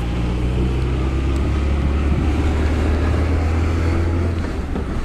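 1991 Honda Accord wagon's four-cylinder engine running perfectly as the car is driven, heard from the cabin; the engine note shifts a couple of times as it changes speed.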